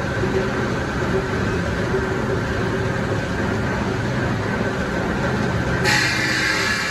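Automatic two-head slab polishing machine running, its heads grinding over an artificial marble sheet with a steady mechanical hum. Near the end a brighter hiss suddenly joins in.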